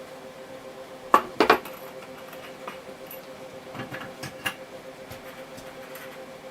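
Hard objects clinking and knocking against each other, three sharp strikes about a second in and a few softer ones near the middle, over a steady hum.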